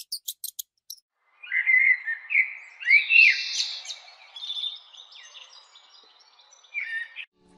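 A small songbird singing a varied run of quick whistled chirps and notes that sweep up and down in pitch. A few short high ticks come in the first second, before the song.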